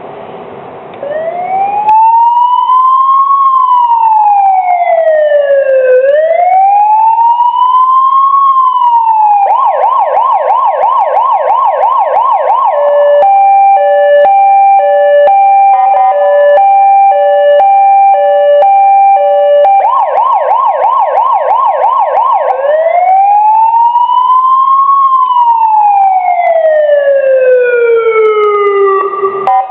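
Loud electronic police siren running through its patterns. It opens with a slow wail rising and falling twice, switches to a fast yelp about ten seconds in, then a two-tone hi-lo alternation, a yelp again, and a last slow wail that falls away near the end.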